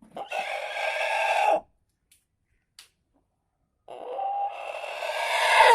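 A bird giving two long, harsh calls a couple of seconds apart, the second one growing louder toward its end.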